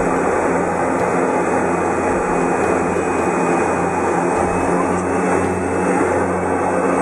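Steady engine drone of a high-wing airplane in flight, heard from inside the cabin: a low, even hum over a broad rush of engine and air noise.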